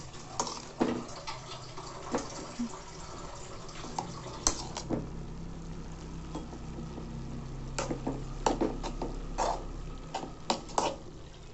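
A metal spoon stirring amaranth leaves and onions in an aluminium kadai, scraping and clinking against the pan several times and most often near the end, over a steady hiss of the greens steaming in the hot pan.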